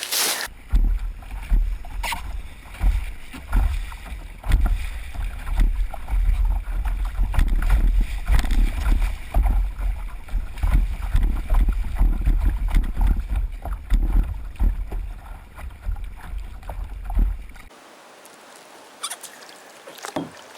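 Kayak on a small river: water splashing against the hull and paddle, over a heavy low rumble that stops abruptly near the end.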